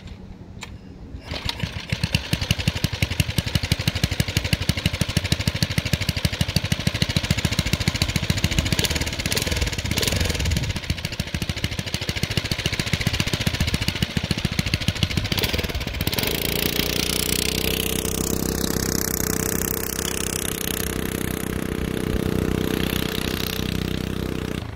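Tecumseh H35 single-cylinder four-stroke engine on a 1969 Rupp Sprint mini bike, pull-started and catching about a second in, then running with a fast, even pulse. About two-thirds of the way through it changes to a smoother, steadier note as the bike rides off.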